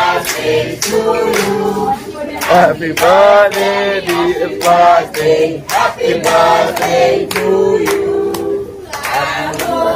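A group of voices singing a birthday song together, with regular hand clapping.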